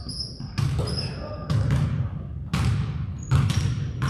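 A basketball bouncing on a gym's hardwood court, about five irregular thuds that echo in the hall, with a few short high squeaks between them.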